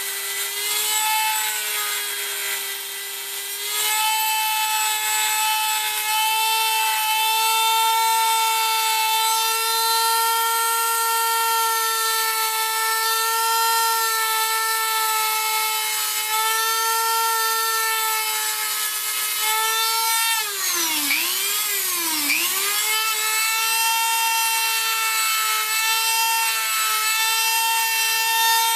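Dremel rotary tool with a sanding drum, whining at a steady high pitch as it sands the orange finish off a dipstick tube down to the black underneath. Its pitch sags sharply twice about 21 seconds in, then recovers.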